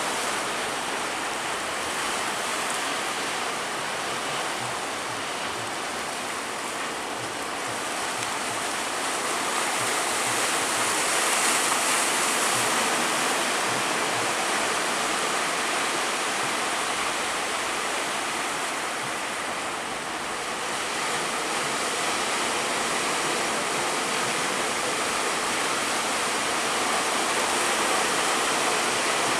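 Continuous rushing of rough sea waves and wind, with no distinct tones or impacts, swelling gently about a third of the way in and again near the end.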